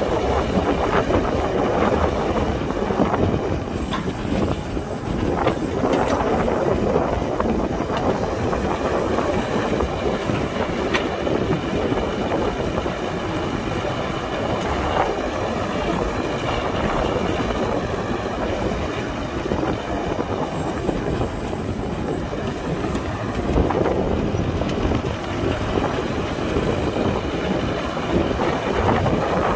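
Excavator's diesel engine running steadily under load as it digs and loads dirt, with a few sharp clanks.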